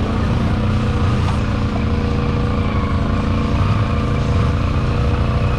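ATV engine running steadily at a low, even pitch, heard close up from the snorkelled machine the camera rides on.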